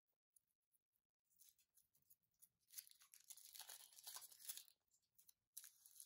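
Foil wrapper of a Kinder Surprise chocolate egg being peeled off by hand, crinkling and tearing quietly. It starts about a second in, runs for a few seconds, and there is a shorter rustle near the end as the last piece of foil comes away.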